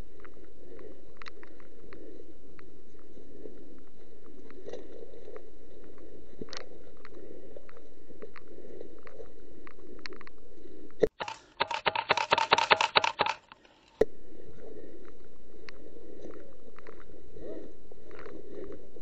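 Footsteps crunching and rustling through thick dry fallen leaves and brush, with scattered small clicks of twigs and gear. In the middle comes the loudest sound: a rapid run of sharp mechanical clicks, several a second, lasting about three seconds and then cutting off suddenly.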